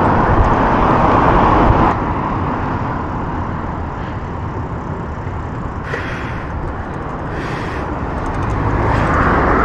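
Road traffic noise heard from a bicycle on a city street, a steady rush of passing cars and road noise. It is louder for the first two seconds, drops back, then builds again near the end.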